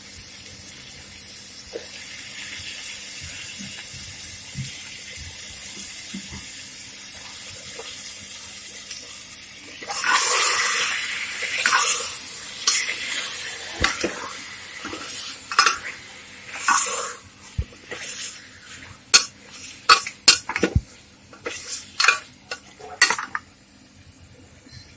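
Minced meat (keema) sizzling in hot oil and masala in a steel pressure cooker, a steady hiss. From about ten seconds in, a spatula scrapes and knocks against the cooker as the keema is stirred, with several sharp clanks near the end.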